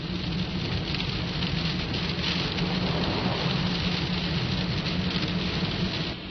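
Heavy rain hitting a car's windshield and body, heard from inside the moving car, over a steady low hum.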